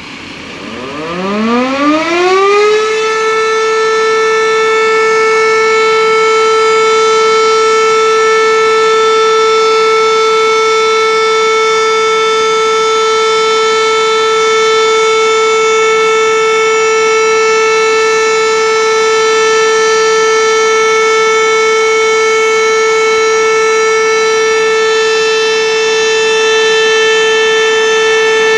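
Fire station siren winding up, rising steeply in pitch over the first three seconds, then holding one steady, loud tone, sounded as a memorial signal.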